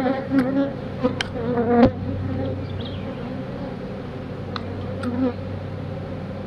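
Honeybees buzzing steadily around an opened nuc during a frame-by-frame inspection, with bees wavering in pitch as they fly close by in the first couple of seconds. A few sharp clicks sound over the buzz, the loudest about two seconds in.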